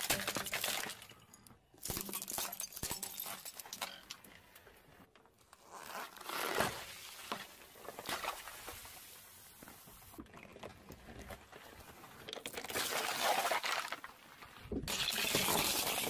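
A car tyre rolling over and crushing one object after another: hard plastic cracking and crunching, a container bursting with liquid gushing and hissing out, then more plastic shattering into pieces.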